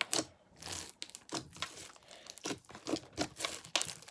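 Hands kneading and folding a large mixed batch of slime, with irregular sticky pops and crackles as it is stretched and pressed.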